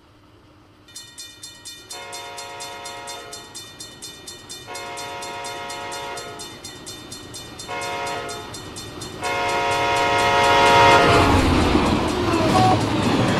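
Diesel locomotive air horn sounding the grade-crossing signal: two long blasts, a short one and a final long one, over a rapidly repeating bell. Near the end the locomotive passes close by with a loud rumble and rail noise.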